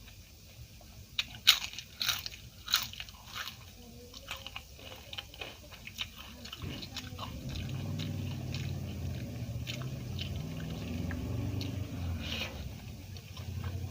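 Crisp fried food being bitten and crunched close to the microphone: a run of sharp, loud crunches in the first few seconds, then steadier chewing.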